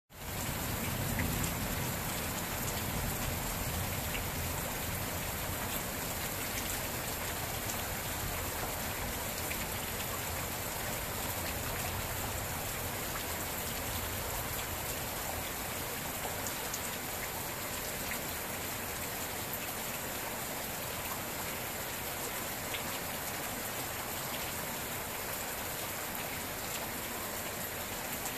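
Steady, even rain, with occasional single drops ticking close by.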